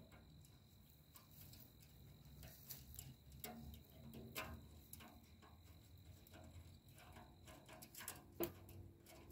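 Near silence, broken by a few faint, scattered small clicks and taps of metal parts as screws are fitted into a stainless steel camp wood stove by gloved hands. A faint steady high tone runs underneath.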